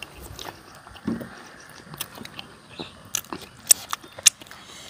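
Close-up chewing and crunching of crispy pork cracklings, with scattered crisp crunches and a few sharp, loud cracks in the second half.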